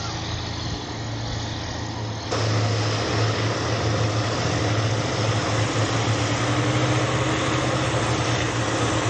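Airlander 10 hybrid airship's engines and propellers droning steadily as it lands, with a strong low hum. The sound grows abruptly louder about two seconds in.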